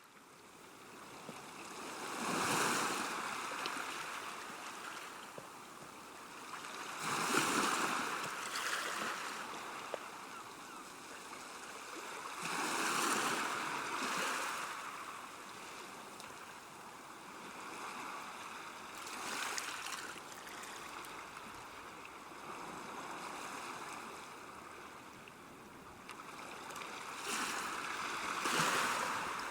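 Small waves washing gently onto a shore, each swell of surf rising and falling away about every five seconds.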